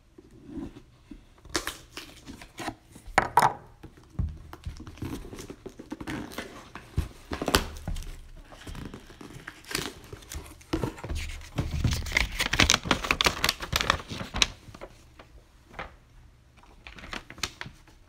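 A paper order form being pulled free of packing tape on a cardboard box, heard as tearing and crinkling paper with scattered knocks and rustles, busiest a little past the middle.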